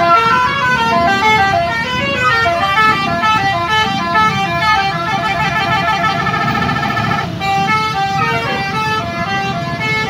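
Tour bus's basuri musical horn playing a tune in quick stepped notes. A fast warbling trill runs from about five to seven seconds in. Low engine and traffic rumble underneath.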